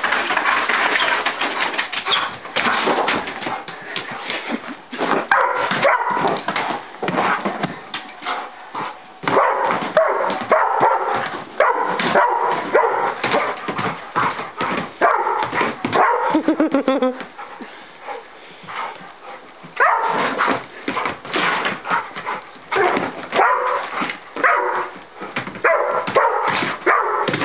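Pit bull barking and whining as it chases a spot of light across the floor, in short irregular bursts, its paws scrabbling on the rug and wood floor.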